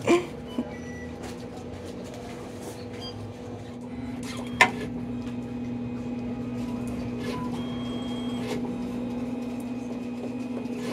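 Photo kiosk printer running with a steady hum while it prints passport photos, growing louder about four seconds in, with a single sharp click just after.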